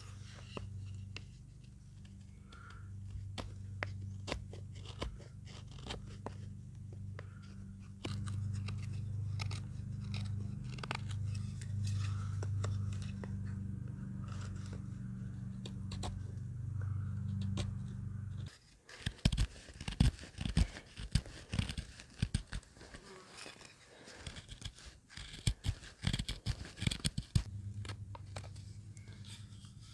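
Close, repeated crunching and scraping with many sharp clicks over a low steady hum. The hum cuts out about two-thirds of the way through, and the clicks then come louder and sharper for several seconds.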